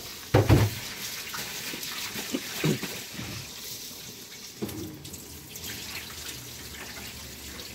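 Kitchen tap running into a sink while rice is washed by hand in the rinse water.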